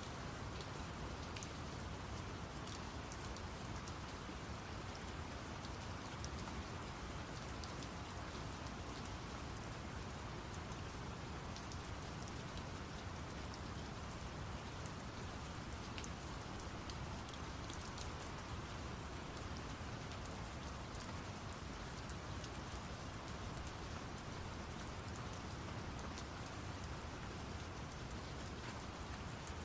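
Steady rain falling, with many scattered sharp drop ticks, over an even, deep brown-noise rush.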